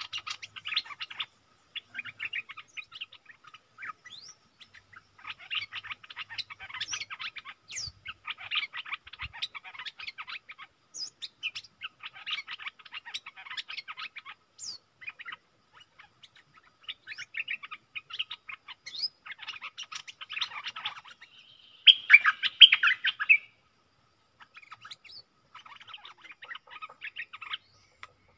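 Bulbuls giving rapid chattering calls in repeated bursts, loudest about 22 seconds in. This is territorial calling between a caged decoy bulbul and a wild bulbul that has come in to challenge it.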